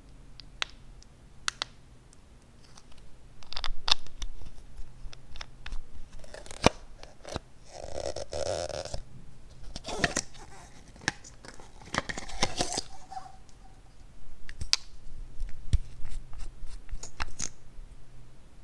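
Hands handling small plastic cosmetic containers and a plastic toy cup: scattered sharp clicks and taps, with a rasp lasting about a second around eight seconds in and a cluster of clicks as the cup's lid is pried open.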